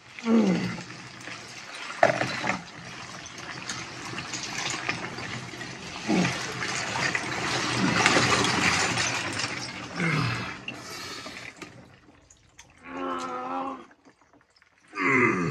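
Icy water and floating ice sloshing and pouring off a man as he surfaces and rises out of an ice bath, loudest about eight seconds in. Several short falling groans break through, and a held 'ahh' comes near the end.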